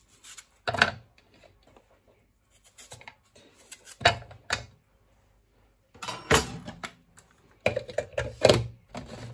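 Irregular knocks of a kitchen knife cutting through a white onion on a cutting board, with a denser run of knocks and clatter near the end.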